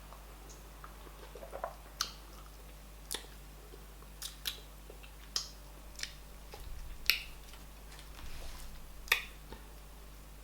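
Close-up eating sounds of a person chewing fufu with oha soup: sharp, wet mouth smacks and clicks about once a second, with softer chewing between them.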